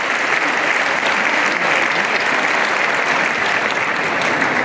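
A large audience applauding steadily in an indoor arena.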